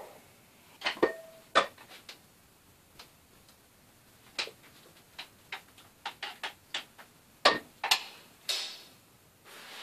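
Kitchen utensil knocks and clicks: a knife on a wooden chopping board, a spatula against a frying pan and its lid being put back on. The strikes are irregular, with a brief ringing clink about a second in and a quick run of light taps a little past halfway.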